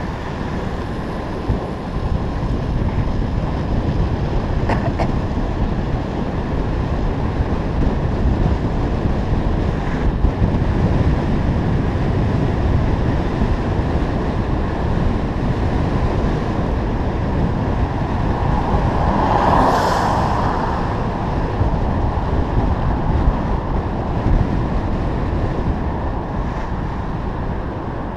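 Wind buffeting the microphone of a camera on a moving bicycle: a steady rumbling roar, with a brief swell of hiss about twenty seconds in.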